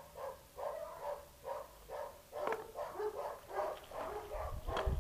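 A dog barking over and over, about two barks a second. Wind noise on the microphone starts building near the end.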